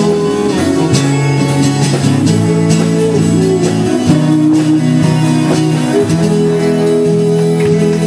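Two acoustic guitars strummed together in a live duo, holding steady chords with a regular strum.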